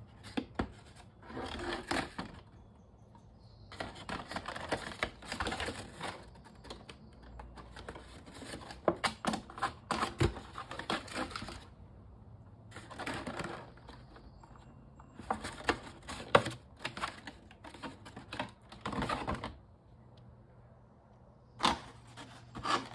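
Folded paper plates being handled and fitted together: several spells of paper rustling and scraping, broken by sharp clicks and taps.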